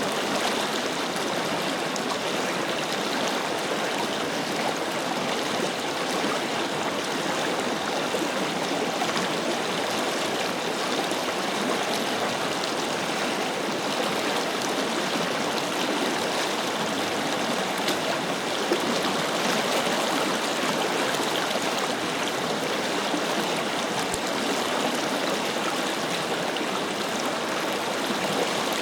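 Forest river flowing steadily, a continuous rush of water with small splashes and gurgles over the stones.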